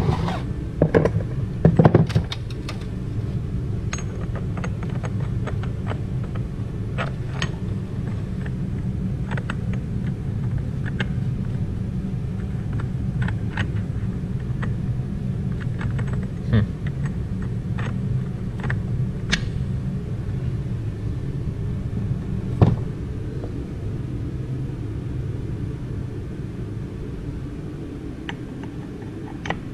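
Steel transmission parts (ring gear, clutch packs, bearings) clinking and knocking now and then as they are handled and set down on a workbench, with a few louder clanks near the start and one about two-thirds of the way in. A steady low rumble runs underneath.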